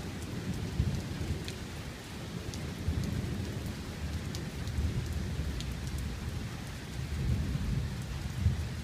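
Thunder rumbling low and long in several swells, over steady rain with sharp drips tapping on an awning.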